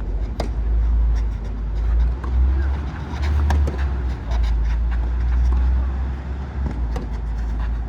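Steady low rumble of wind buffeting the microphone, with a couple of sharp knocks, one about half a second in and one near the end.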